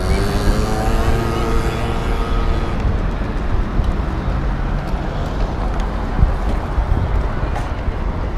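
Road traffic noise with a steady low rumble, and a passing vehicle whose engine tone falls slightly in pitch over the first three seconds.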